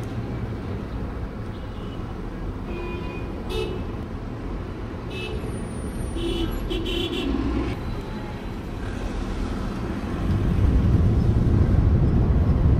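Outdoor street traffic noise with a few short horn toots, then a louder low rumble about ten seconds in.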